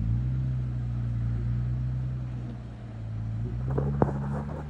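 Jeep Wrangler JKU engine running at low revs while crawling on an off-road trail, its pitch picking up at the start and again near the end. A single sharp knock about four seconds in.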